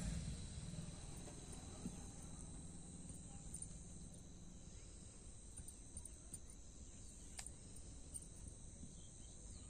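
Faint outdoor ambience: a steady, high-pitched insect drone like crickets, over a low rumble, with a couple of faint ticks.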